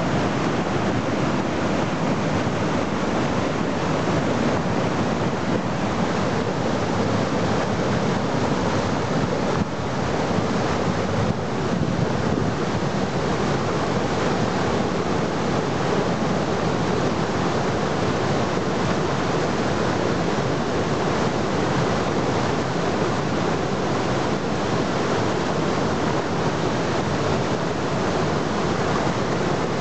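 Floodwater rushing through river rapids: a steady, unbroken whitewater rush.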